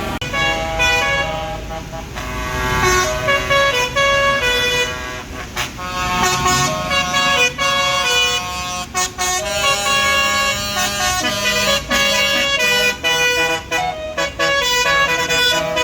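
A bus's basuri telolet horn, a multi-note air horn, playing a tune in quick stepped notes, choppier and more staccato near the end, over a low vehicle rumble.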